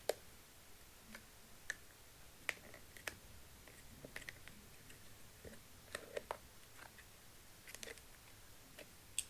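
Irregular sharp clicks and taps of hard plastic parts being handled, about a dozen, from the plastic dust box of a Deerma handheld vacuum cleaner being worked by hand.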